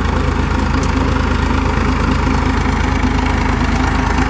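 HMT 3511 tractor's diesel engine running steadily under load as it drives a 7-foot Punni super seeder through rice stubble. It holds its revs without bogging down.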